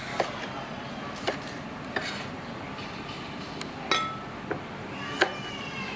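Kitchen utensils and dishes clinking: about six sharp, irregular clinks, one near the middle ringing briefly.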